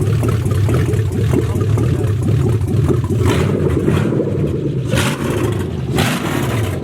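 V8 engine swapped into a Nissan 240SX running steadily at idle on one of its first runs after the swap, with a few short sharp noises over it in the second half.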